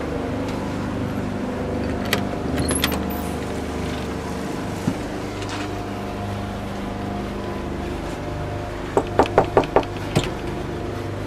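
Knuckles knocking on a wood-panelled door: a quick run of about six knocks near the end, then one more. Underneath, a steady low mechanical drone, with a couple of clicks a couple of seconds in.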